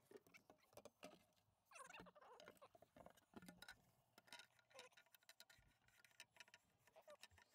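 Near silence, with faint scattered clicks and light rustling from the timing chain cover plate being handled and pressed into place by gloved hands.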